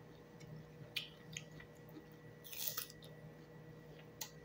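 A man eating papaya salad with raw vegetables: faint chewing and mouth smacks, with a few sharp clicks and a short crackle a bit past halfway.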